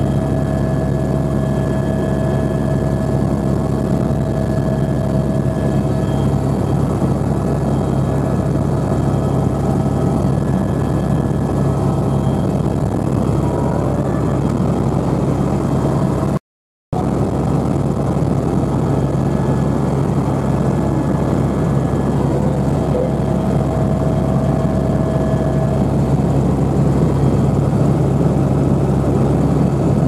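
Helicopter in flight heard from inside the cabin: a loud, steady drone of engine and rotor with a low hum and faint steady whines. A brief dropout to silence about halfway through.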